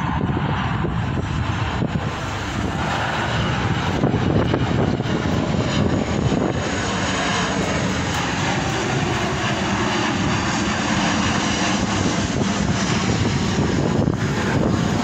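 Jet engine noise from a Boeing 737-800's CFM56-7B turbofans as the airliner passes overhead on approach with its landing gear down: a steady, even rush of sound that does not noticeably swell or fade.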